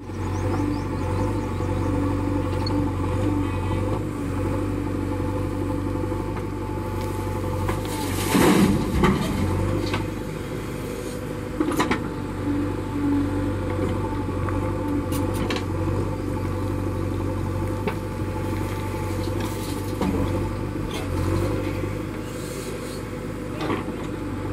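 JCB 3DX backhoe loader's diesel engine running steadily while the backhoe arm digs soil. There are a few sharp knocks, and a louder noisy burst about eight and a half seconds in.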